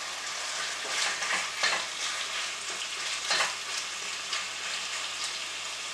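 Diced chicken sizzling in hot oil in a pot as it is stirred with a wooden spoon, with a few short, louder strokes of the spoon in the pan.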